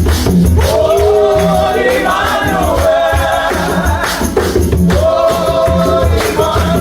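Gospel worship song: a choir sings long, gliding notes over a pulsing bass line and light percussion.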